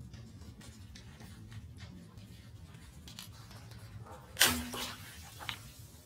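A water balloon bursting under a slowly rolling car tyre: one sharp pop about four seconds in, with a fainter click about a second later, over a low steady rumble.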